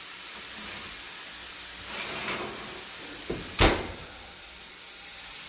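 Oven door swung shut with one sharp clack about three and a half seconds in, just after a lighter knock, over the steady hiss of food frying in a pan on the stove.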